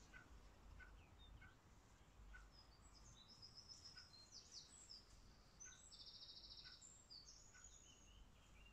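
Faint birdsong: several high chirping phrases with a rapid buzzy trill about six seconds in, over a soft repeated call and a low steady background hum.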